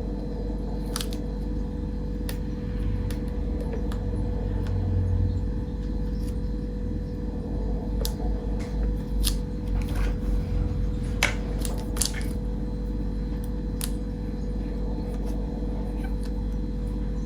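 Scattered sharp clicks and light taps from a vintage Zippo lighter being handled, heard over a steady low room hum.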